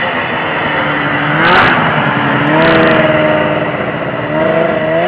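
1978 Arctic Cat Pantera 5000 snowmobile's two-stroke engine running, its pitch rising as it revs about a second and a half in and again near the end. A short rush of noise comes with the first rev.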